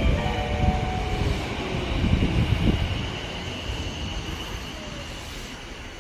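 Sanyo Electric Railway train running along the platform: a low rumble with wheel thumps over the first few seconds, fading over the second half, with a thin high steady tone above it.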